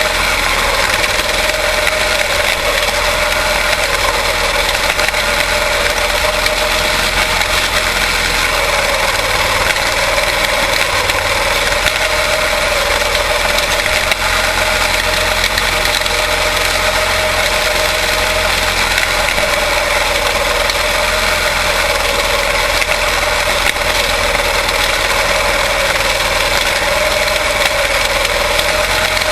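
Quarter midget race cars' single-cylinder Briggs & Stratton Animal engines running continuously, a steady engine note that rises and falls slightly in pitch.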